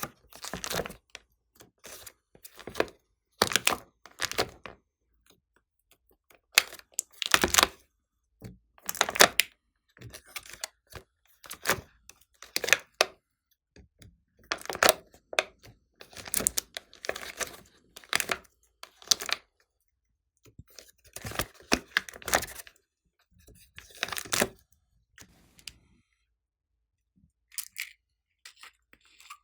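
Glossy slime being pressed, stretched and folded by hand, giving irregular bunches of sharp clicks and crackles. They stop about 26 seconds in, apart from a couple of short ones near the end.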